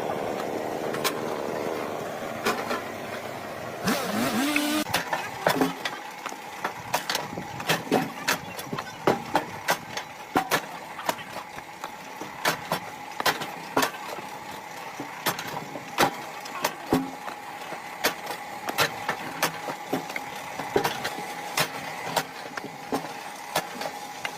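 A machine running with a steady hum, under frequent irregular sharp knocks and cracks, about one or two a second.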